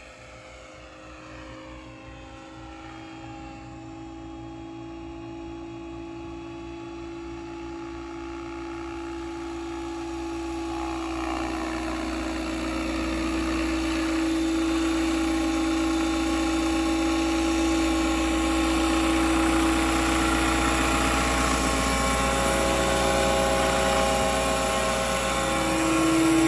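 Radio-controlled scale Huey (UH-1) model helicopter in flight, its motor and rotor making a steady pitched whine that grows louder as it comes closer, then holds loud.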